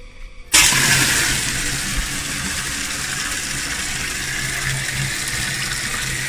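Bathroom water faucet turned on about half a second in, then running at full flow with a steady strong gush. The water is pushed uphill through a long pipe by a half-horsepower automatic water pump.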